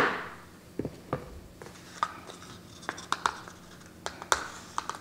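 Metal measuring spoon scraping in a plastic bag of cornstarch and tapping into a plastic container: scattered light clicks and scratches, a handful over a few seconds, over a faint steady hum.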